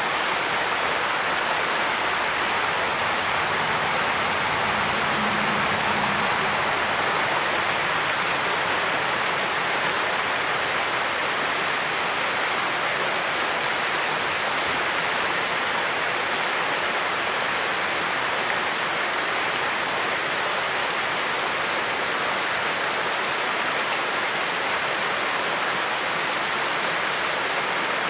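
Waterfall running: a steady, unbroken rush of falling water.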